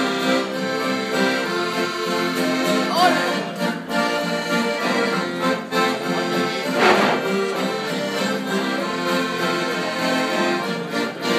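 Live piano accordion playing a traditional tune in sustained chords, with an acoustic guitar strummed along.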